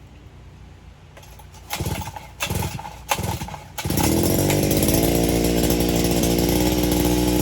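Small two-stroke lawn-equipment engine being pull-started after sitting unused for a while: three short sputtering pulls, then it catches about four seconds in and runs steadily.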